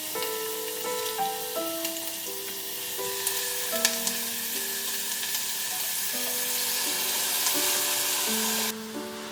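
Food frying in a pan with a steady sizzle, with a few light clicks; the sizzle cuts off suddenly near the end. Soft instrumental background music plays underneath.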